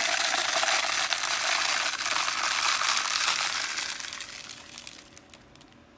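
Birdseed pouring from a plastic bag into a plastic drink bottle: a steady rush of seeds rattling against the plastic, which tails off over the last two seconds as the pour ends.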